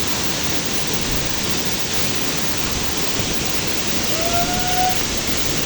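Waterfall pouring heavily, a steady dense rush of water swollen by rain. A brief faint call rises out of it about four seconds in.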